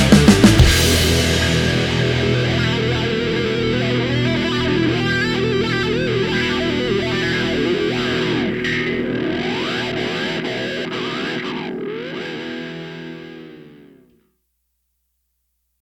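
Rock music with distorted electric guitar: a few loud hits open it, then the last chord rings out, fades and stops about two seconds before the end, leaving silence.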